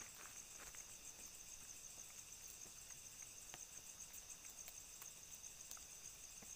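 Faint, steady insect chorus, a continuous high-pitched trill, with a few light clicks.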